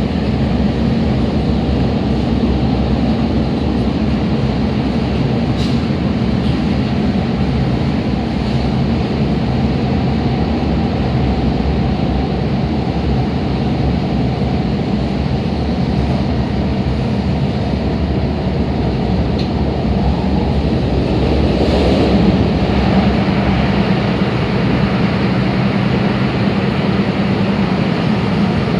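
MTR Tung Chung line K-Train electric multiple unit running at speed, heard on board. There is a steady wheel-on-rail rumble with a constant hum underneath, a few faint clicks, and a slight swell in loudness about two-thirds of the way through.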